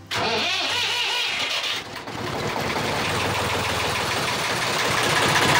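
Traditional slow-revving narrowboat diesel engine. A hiss for about the first two seconds, then the engine running with an even, rapid beat of firing strokes, growing slightly louder near the end.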